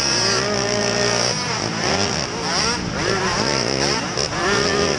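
Small youth racing quad engines at full throttle, heard onboard; the nearest engine's pitch climbs and drops back several times as it accelerates and backs off through the turns.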